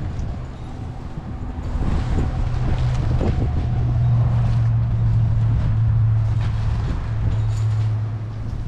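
A steady low engine-like hum that grows louder about two seconds in and holds, with wind noise on the microphone.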